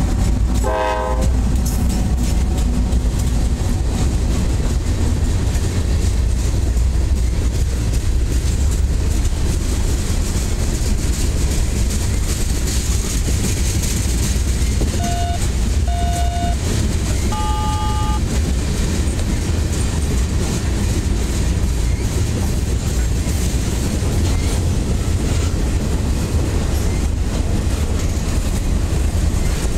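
Mixed freight train's cars rolling past at track side: a steady low rumble with wheels clicking over the rail. A brief tone about a second in and a few short high beeps around the middle.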